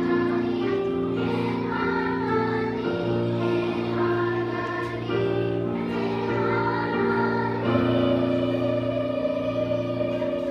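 Children's choir singing together in long held notes that change in steps.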